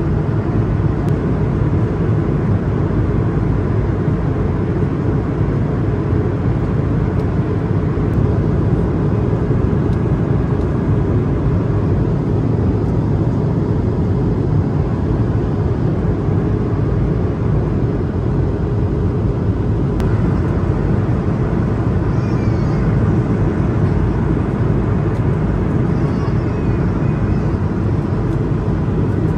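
Steady in-flight cabin noise of an Airbus A220-300 airliner: a low, even rushing drone of airflow and its Pratt & Whitney geared turbofan engines.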